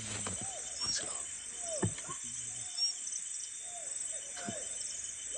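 Outdoor bush ambience: insects chirring steadily in a high pulsing band, with several short calls that fall in pitch and a few brief high whistles, typical of birds.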